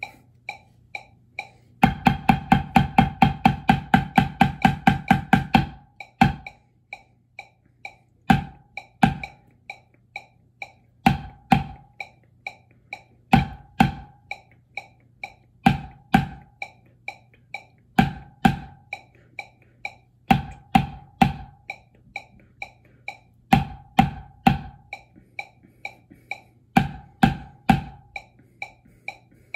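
Wooden drumsticks striking a rubber practice pad over a metronome clicking at 130 beats a minute. About two seconds in comes a run of fast, even strokes lasting about four seconds, then strokes in pairs and short groups between the steady clicks.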